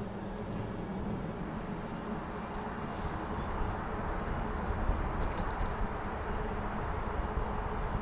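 Steady wind noise on the microphone and bicycle tyres rolling on a paved trail while riding, with a few faint ticks.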